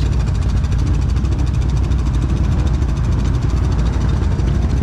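Can-Am ATV engine idling steadily, a low running sound with no revving.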